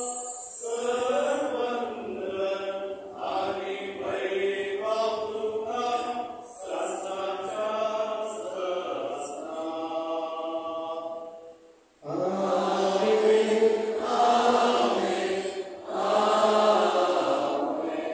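Voices singing a slow liturgical chant: a long flowing phrase, a short break near the middle, then two louder, held phrases.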